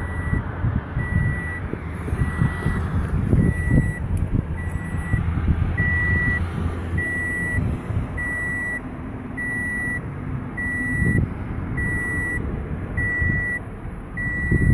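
A car's electronic warning chime beeping steadily at one pitch, a little under twice a second, over a low rumble of wind and handling noise on the microphone.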